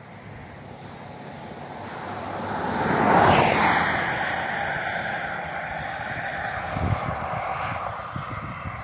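A road vehicle passes close by. Its tyre and engine noise swells to a peak about three seconds in, then drops in pitch and fades slowly as it moves away.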